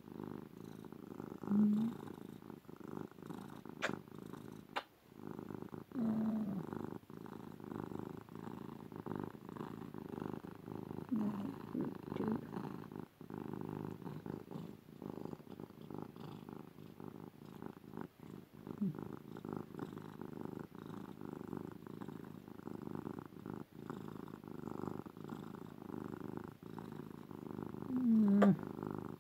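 Domestic orange tabby cat purring loudly and steadily, close to the microphone, with a few short pitched sounds over it.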